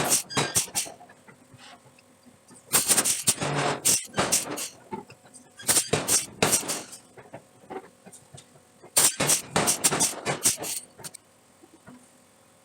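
Rapid clusters of hard metal strikes, about four bursts of a second or two each with pauses between, over a faint steady machine hum.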